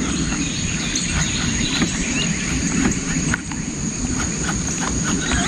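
Outdoor ambience: a steady, high insect drone over a low, uneven rumble, with a few faint bird chirps.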